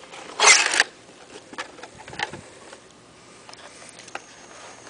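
Cardboard phone box being opened: a short loud scrape as the lid slides free about half a second in, then faint taps and paper rustling as the inserts are handled.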